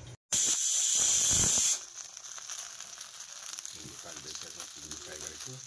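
Cut okra frying in a pan: loud sizzling for about a second and a half, then a quieter steady sizzle with faint voices behind it.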